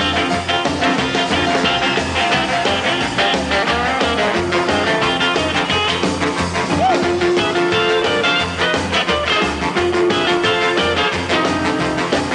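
Rhythm-and-blues band playing an instrumental passage with no singing, over a steady pulsing bass line and drums.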